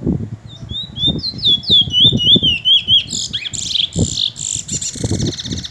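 Caged bullfinch (large-billed seed finch) singing: a run of quick down-slurred whistled notes, breaking into a fast buzzy trill about halfway through.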